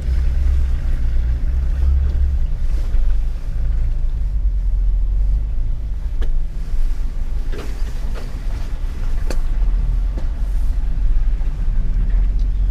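Jeep engine and drivetrain running with a steady low rumble while driving an off-road trail, with a few short knocks and rattles in the second half.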